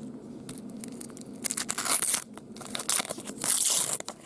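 Card pack wrapper being torn open and crinkled, in loud rustling bursts starting about a second and a half in.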